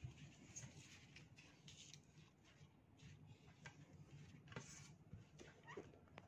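Near silence: room tone with a few faint scattered clicks and rustles.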